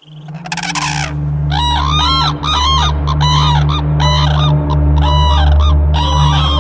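Repeated honking bird calls, two or three a second, each rising and falling in pitch, over a steady low hum.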